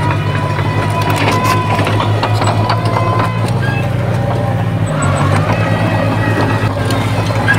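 The diesel engine of heavy earthmoving machinery runs steadily under load, its note shifting about halfway through. Scattered metallic clanks and squeaks sit over it.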